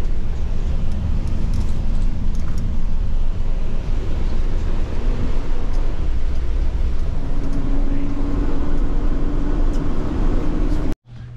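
Bus engine and road noise from inside the cabin: a steady low rumble with tyre noise, joined by a steady hum about two-thirds of the way through. It cuts off abruptly near the end.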